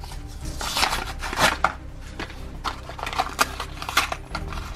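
Plastic blister packaging and card backing of a Hot Wheels diecast car being torn open by hand: an irregular run of crinkling, crackling rustles and rips.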